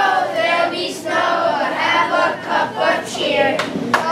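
Children's choir singing, many young voices together, in phrases with short breaks between them.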